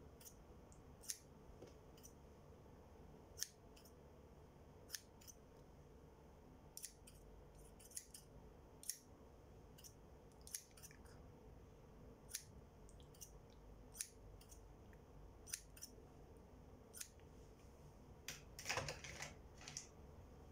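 Crisp, sharp clicks from close-up plucking hand movements, one every second or two, with a quick flurry of clicks near the end, over a quiet room.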